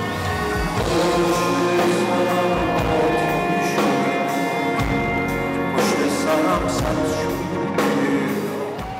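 Persian pop song: a male singer singing with band accompaniment.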